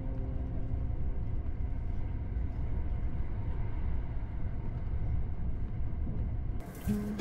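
Steady low rumble of a train running. The last notes of background music fade out in the first second, and a short hiss comes in near the end.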